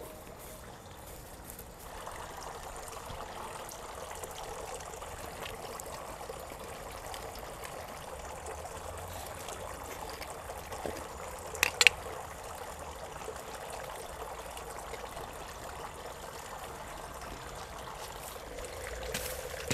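Steady trickle of running water. Two sharp clicks come about twelve seconds in.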